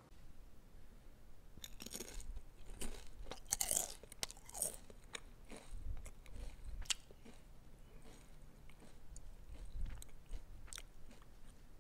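A bag of Lay's Classic potato chips crinkling and crunching in irregular crackly bursts, picked up close on a clip-on lapel microphone.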